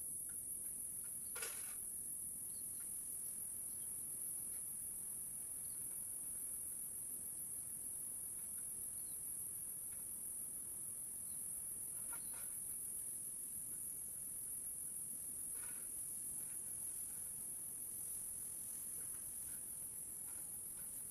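Steady high-pitched chorus of crickets or similar insects, with a few faint short chirps or clicks now and then.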